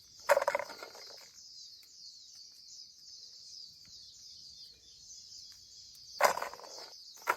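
Chestnuts being sorted by hand, with short clattering rattles about a second in and twice near the end, over a steady high-pitched chirping in the background.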